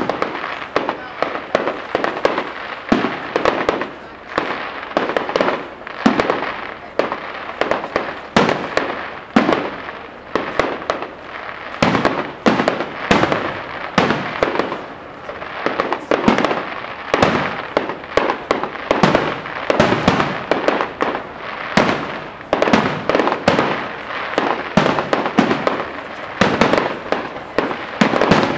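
Aerial fireworks display: a rapid, unbroken string of sharp bangs and bursts, several a second.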